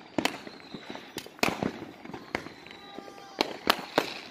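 Neighbourhood fireworks going off: about ten sharp cracks and bangs at irregular intervals, some close and loud, others fainter.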